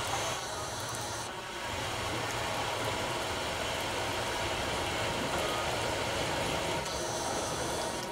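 Electric railcar of the Bad Gleichenberg – Feldbach line approaching slowly along the track, a steady, even running noise.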